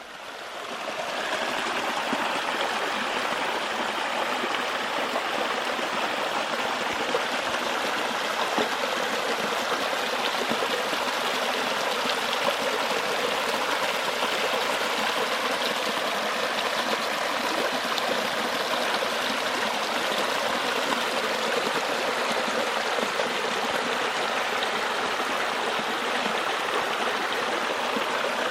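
Sneezing Falls, a waterfall, with water rushing steadily. The sound fades in over the first second or so, then holds even throughout.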